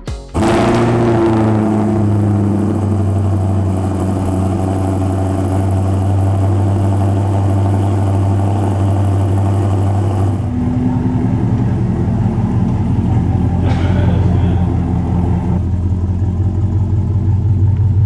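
C8 Corvette V8 with an aftermarket header-back exhaust starting up: a sudden rev flare about half a second in that drops back over the next second or two, then a steady idle. The tone of the idle changes about ten seconds in.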